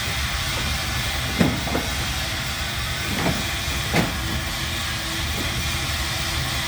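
Steady hissing noise with a low rumble underneath, broken by a few short, sharp sounds about one and a half, three and four seconds in.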